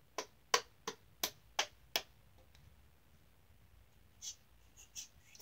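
A lotion pump bottle pressed six times in quick succession, giving sharp plastic clicks about a third of a second apart, followed near the end by a few faint hissy sounds.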